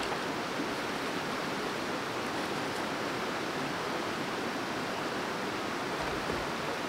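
River water running steadily over a stony bed, a constant rushing.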